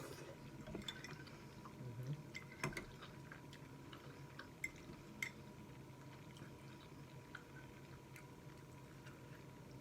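Faint wet mouth sounds of someone eating spaghetti: scattered smacks and small clicks, a few slightly louder near the start and around the middle.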